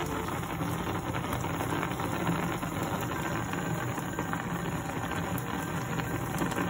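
Chicken in a milky curry sauce bubbling hard in a frying pan: a steady, dense crackle of popping bubbles.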